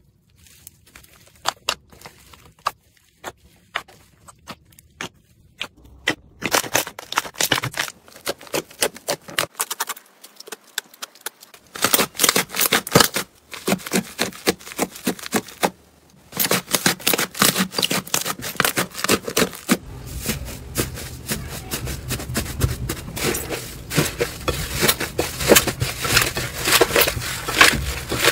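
Slime being squished, pressed and kneaded by hand: a string of sticky clicks, pops and crackles. Sparse and faint at first, then louder and denser from about six seconds in, with short breaks as one batch of slime gives way to another.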